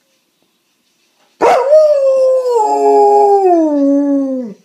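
Alaskan Malamute howling: one long howl starting about a second and a half in, its pitch stepping down gradually and dropping further just before it stops.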